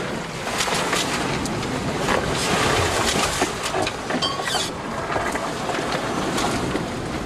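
Wind buffeting the microphone over the rush of rough sea around a Westsail 32 sailboat under way, with scattered short knocks and clicks and a brief squeak about four seconds in.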